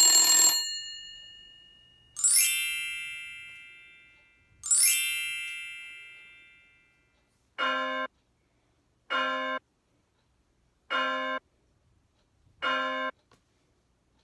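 Bell sound effects: a ringing bell stops just after the start and dies away, then a bell is struck twice, each strike ringing out for about two seconds. Four short electronic beeps follow, about a second and a half apart.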